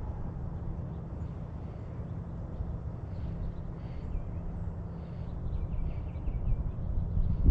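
Outdoor ambience: a steady low rumble, with faint small-bird chirps now and then.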